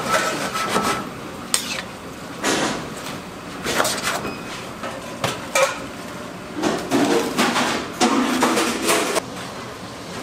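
Metal spoon scraping and clattering against a large nonstick frying pan in irregular bursts as vegetables and sauced meat are stirred and tossed.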